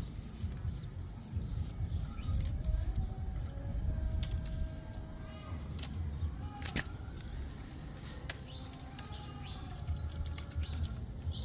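Low, steady outdoor rumble with a few faint short chirps and scattered clicks.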